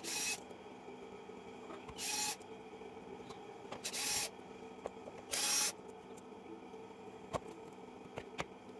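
Four short hissing bursts, each under half a second and roughly one and a half to two seconds apart, over a faint steady hum, with a few light clicks near the end.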